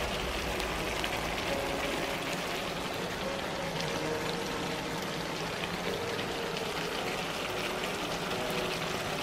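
Tin mackerel in tomato and pepper sauce simmering in a frying pan on an electric stovetop: a steady sizzling hiss with fine crackle.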